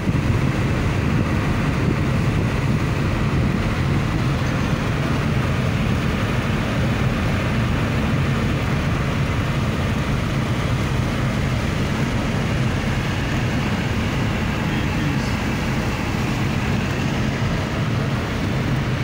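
Steady road noise inside a car's cabin at motorway speed: a low rumble of tyres and engine with a hiss over it, the tyres running on a wet road.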